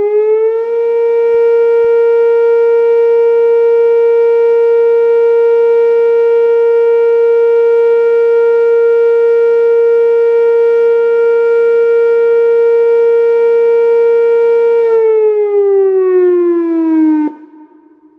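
Whelen WPS-2804 electronic outdoor warning siren sounding a steady tone. It winds up to a constant pitch, holds it for about fourteen seconds, then winds down and cuts off abruptly near the end.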